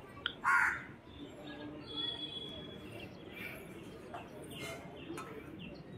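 Faint outdoor ambience with birds chirping. A short squeak about half a second in is the loudest sound.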